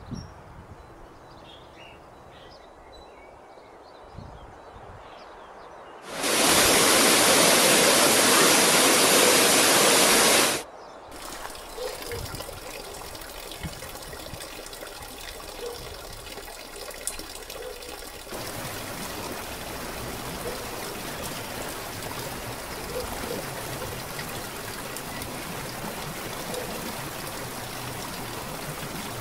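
Running water heard in several cuts: after a few quiet seconds, a loud steady rush of water starts suddenly and stops about four seconds later, followed by a trickling stream with small splashes. From about two-thirds of the way through, a small waterfall splashes steadily into a rocky pool.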